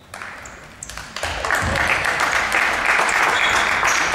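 Clapping and applause from the benches and spectators, starting about a second in and keeping on steadily, with a few short high sneaker squeaks on the court.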